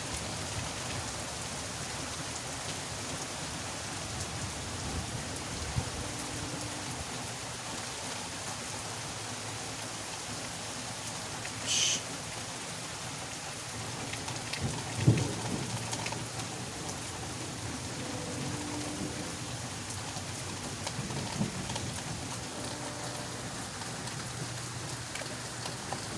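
Steady rain falling, with thunder rumbling low in the middle and a sharp low knock about halfway through.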